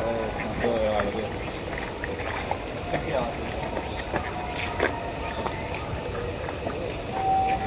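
Cicadas buzzing in a steady, high-pitched summer chorus that does not let up, with faint voices underneath.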